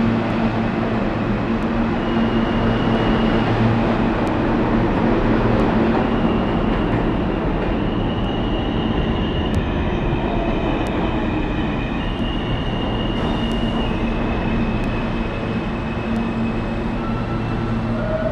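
New York City subway trains running through an underground station, led by an R160 F train pulling out: a continuous rumble of wheels on rails and motor hum, with high, thin whines coming and going every second or two.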